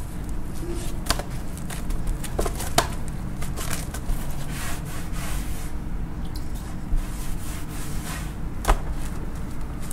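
Plastic-wrapped bamboo sushi mat pressing and shaping a roll on a wooden cutting board, with a few sharp knocks, then a cloth wiping the board, over a steady low hum.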